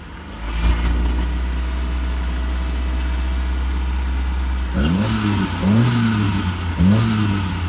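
Carburettor, LPG-converted Mazda E2000 van engine running with a slight roughness, which the mechanic puts down to a failed MCV (secondary dash pot) causing a misfire. It runs steadily, then is revved three times about a second apart near the end, the pitch rising and falling with each blip.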